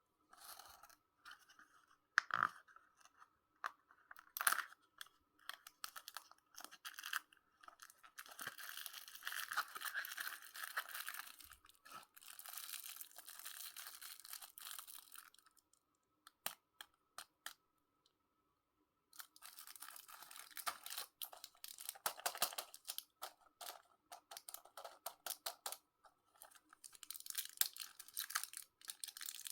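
Sweet wrappers being crinkled and torn open by hand, in irregular bursts of rustling and crackling. The sound drops away for a few seconds past the middle.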